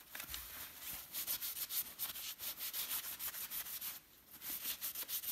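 Quick back-and-forth wiping strokes over the plastic housing of a Ryobi cordless impact wrench, with a short pause about four seconds in. The oily grime is being rubbed off with isopropyl cleaning alcohol.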